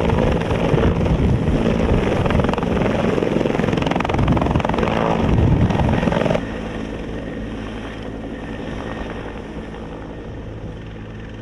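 Helicopter lifting off, its turbine engine and rotor running loud and steady. About six seconds in the sound drops suddenly and carries on quieter as the helicopter climbs away.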